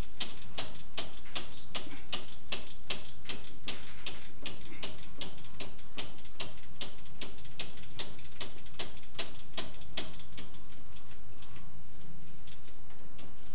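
Steady rapid mechanical clicking, about four sharp clicks a second, growing a little weaker near the end.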